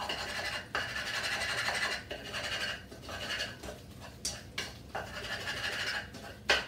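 A utensil scraping cooked spinach out of a wok, in stretches of rough scraping against the pan with a few sharper knocks.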